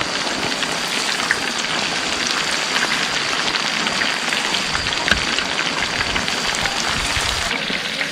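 Chicken wings frying in hot oil: a steady sizzle with dense, fine crackling pops.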